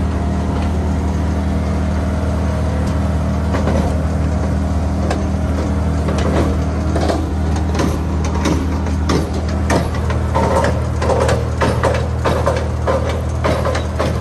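Boat engine running steadily as the yacht motors along, a low even drone. From about halfway through, a rapid series of knocks and clatters sounds over it.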